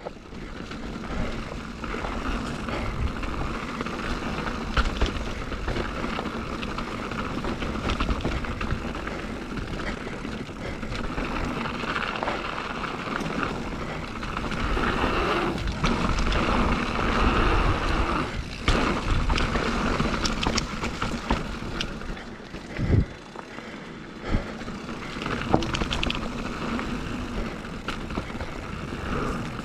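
Mountain bike riding down a dirt trail: continuous tyre and rolling noise with the bike rattling and clicking over bumps, and a sharper knock about three quarters of the way through.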